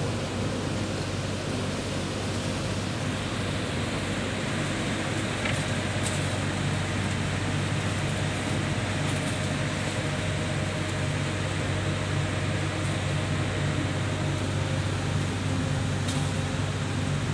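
Industrial plant machinery running steadily, a fan-like rushing noise over a low electrical hum.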